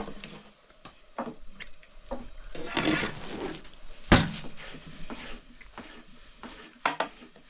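Kitchen handling sounds: scattered knocks and clatters of utensils and wood, with a rustle about three seconds in and one loud sharp knock a little after four seconds in.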